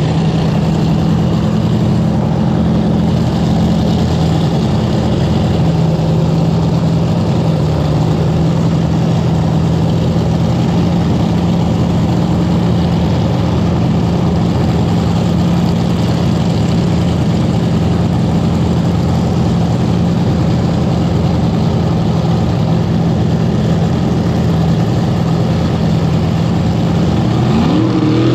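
Supercharged nitro V8 of a front-engine dragster idling steadily, its revs rising near the end.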